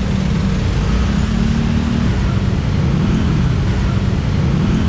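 Dense road traffic of motor scooters and cars passing close by, with steady engine noise.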